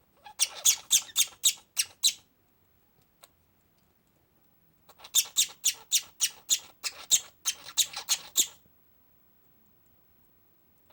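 Budgerigar coughing in two fits of quick, sharp hacks, about seven in the first and about a dozen in the second a few seconds later, three to four a second. The coughing comes from pneumonia.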